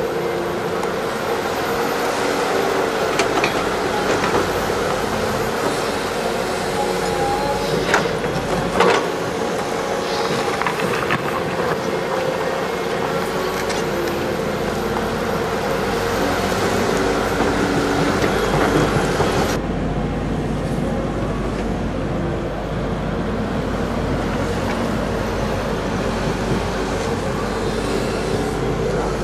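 Caterpillar tracked excavator running under load as it digs and swings soil, with sharp metallic knocks of the bucket about eight and nine seconds in. About two-thirds of the way through, the sound changes suddenly to a duller, steadier rumble of machinery.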